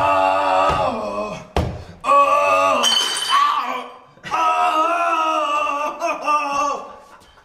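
A man's voice giving three long, drawn-out pirate-style calls, each held for a second or two with a wavering pitch.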